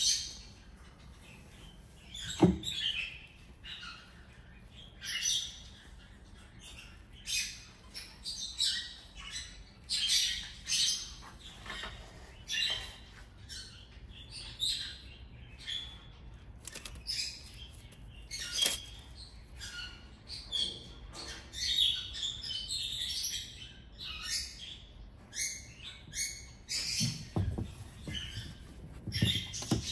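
Two kittens play-fighting on a tiled floor: quick irregular scuffling and scratching of paws and claws on tile, with a dull thump about two seconds in and a few more near the end as they tumble and knock against things.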